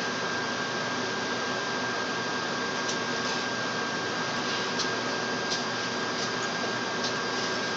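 Steady hiss with a thin constant high tone and a few faint ticks.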